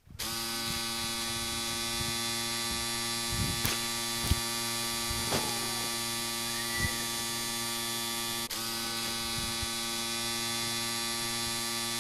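A steady electric buzz over a low hum, cutting in abruptly at the start, with a few faint clicks near the middle and a brief dropout about two-thirds through.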